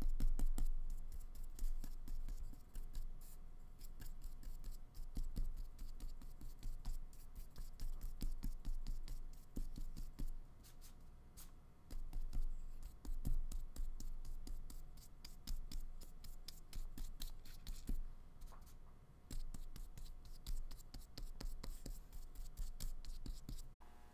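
A paintbrush loaded with acrylic paint scrubbing and dabbing on paper and palette, in short uneven strokes, with light taps and handling noises on the tabletop.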